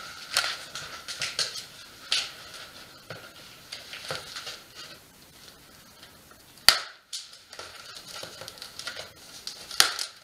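Cardboard bike box being handled with small scrapes and rustles, and a sharp snap about two-thirds of the way through and another near the end: plastic packing straps being cut with side cutters.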